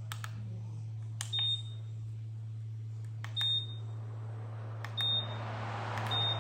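Pelonis tower fan's controls beeping four times, each short high beep coming right after a button click, over a steady low hum. A hiss builds near the end.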